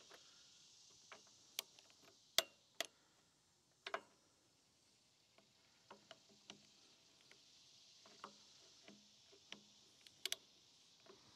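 Torque wrench on cylinder head bolts giving a dozen or so sharp clicks at uneven intervals, some in quick pairs. Each click marks a bolt reaching the wrench's 15 foot-pound setting during the first stage of torquing the head.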